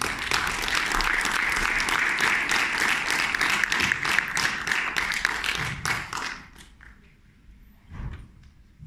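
Audience applauding, dense clapping that fades out after about six seconds, followed by a low thump near the end.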